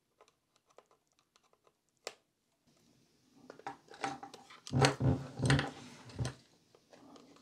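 Flat-headed screwdriver prying at the plastic snap clips of a small plastic electronics case: scattered clicks at first, then about halfway through a run of sharp clicks, scraping and a few heavier knocks as the clips are worked loose.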